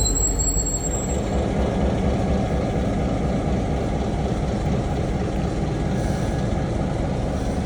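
Diesel train running with a steady low rumble. A thin high squeal, typical of wheels on the rail, fades out about a second in.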